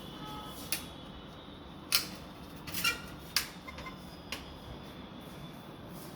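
Five irregular sharp clicks and knocks over a steady low hum, the loudest about two seconds in.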